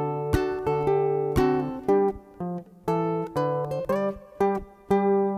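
Background music of a plucked acoustic guitar: single notes and chords struck one after another, each ringing and fading before the next.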